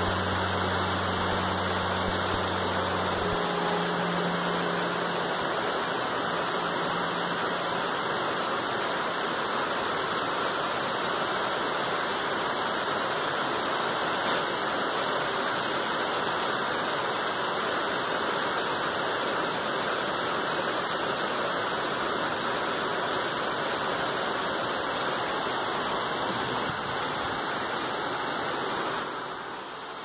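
Heavy rain falling steadily on tree leaves and the ground, an even hiss of water. A low hum sits under it for the first three seconds, and the sound dips briefly near the end.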